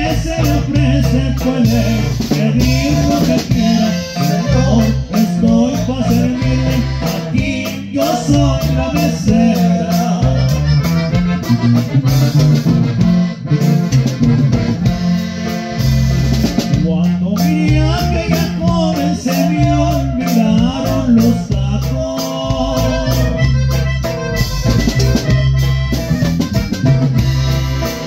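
Live norteño band playing a song: accordion melody over a steady drum beat and bass, with a man singing into the microphone in parts.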